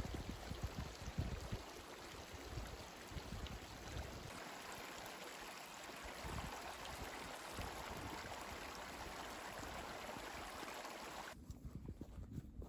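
Steady rushing of running water, with low wind buffeting on the microphone in the first few seconds. The rushing cuts off abruptly near the end.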